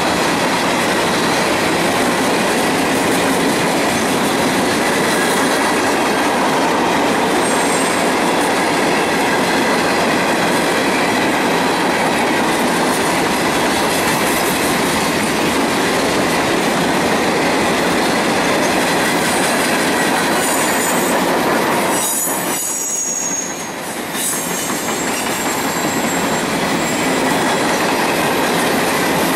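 Empty open-top coke hopper cars of a freight train rolling past, a steady rumble of steel wheels on rail. About two-thirds of the way through, high-pitched wheel squeal comes and goes and the noise briefly drops before returning.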